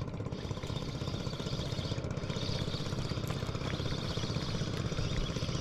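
Small fishing boat's engine running steadily with a low, even rhythm.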